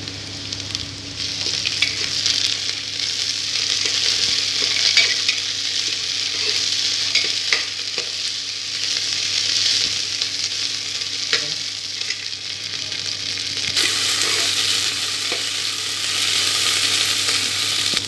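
Diced potatoes and green capsicum sizzling in hot oil with onions in a pressure cooker, stirred with a steel ladle that scrapes and clicks against the pot now and then. The sizzle turns sharper near the end.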